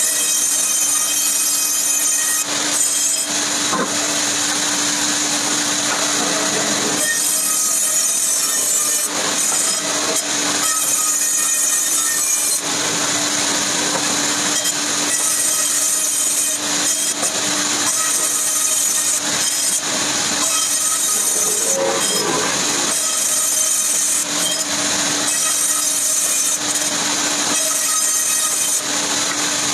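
Power saw cutting wood: a steady motor hum under a high, metallic whine and rasp, the sound shifting every few seconds as cuts change.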